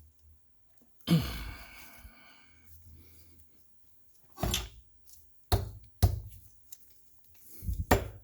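Sharp metal knocks and clunks as an Orac lathe chuck, gripping a large bolt used as a lever, is forced to break it loose from the spindle. The first knock, about a second in, is the loudest and rings on for about a second; four more, shorter knocks follow.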